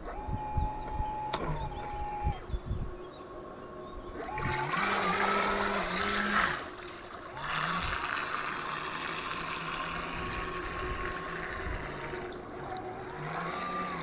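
Electric motors of a CamaraD Atom radio-controlled bait boat whining, their pitch stepping up and down with the throttle. Water rushes and splashes at the hull as the boat speeds up, and there are a few dull knocks in the first seconds.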